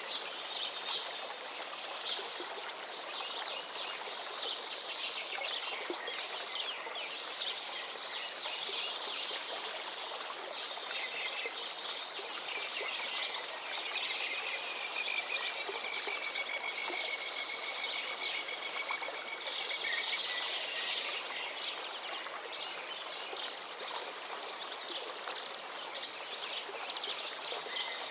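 River water flowing steadily, with small birds chirping over it and one long, drawn-out trill in the middle.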